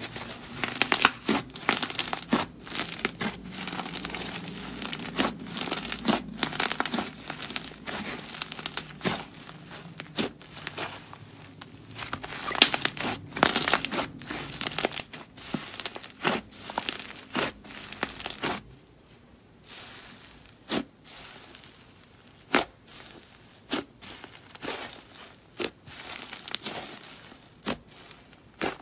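Thick clay slime being squished and kneaded by hand, giving dense crinkly crackling and sticky tearing. After a brief pause about two-thirds through, the crackles thin out to single sharp pops as fingers press into the airy slime.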